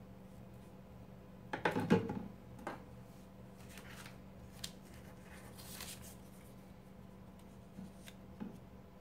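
A picture frame set down on a wooden tabletop with a few sharp knocks about two seconds in, then quieter handling: a click, soft paper rustling and small taps as comic-paper strips are worked onto the frame.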